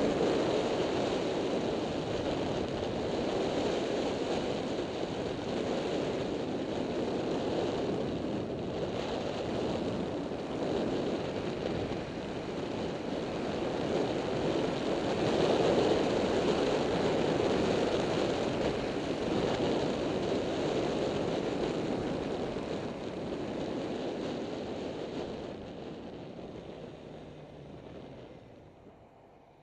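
Wind rushing over the microphone of a camera mounted on a moving Yamaha FZ6-R motorcycle, mixed with road and engine noise. It swells and eases through the ride, then dies away over the last few seconds as the bike slows for a stop sign.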